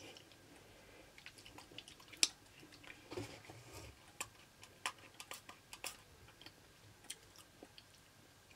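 Faint mouth clicks and smacks of someone sucking and tasting a sour candy, with scattered short ticks; the loudest comes about two seconds in.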